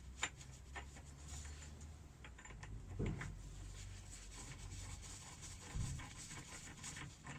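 Light clicks and rubbing of metal parts being handled as the fork leg's bottom Allen bolt is worked out, with two dull knocks, about three and six seconds in.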